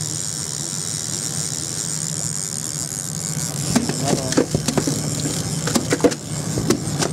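Twin Yamaha 250 V6 outboard motors running at a low steady idle, with a steady hiss of water and air over it. From about halfway, a string of sharp knocks and clicks joins in.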